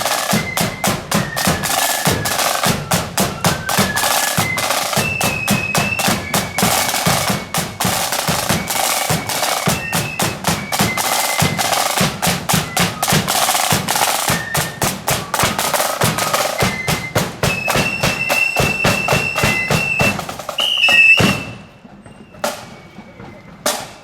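Marching band playing: rapid snare and bass drum strokes under a high melody line. The music stops suddenly about 21 seconds in, leaving a much quieter background with a couple of knocks.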